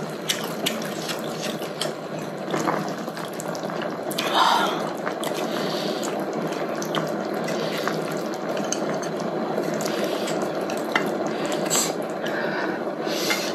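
Red hotpot broth simmering steadily in an electric hot pot, with occasional light clicks of wooden chopsticks on the food and pan.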